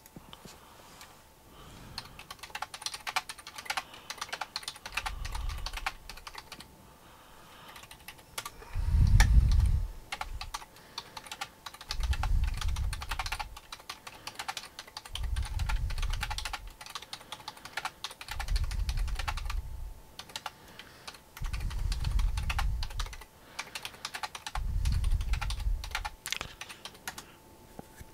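Typing on a computer keyboard: quick runs of key clicks, pausing now and then. Under it, a low muffled swell comes back about every three seconds.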